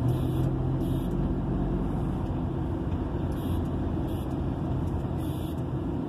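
Vehicle engine running steadily at low speed while driving, heard from inside the cab.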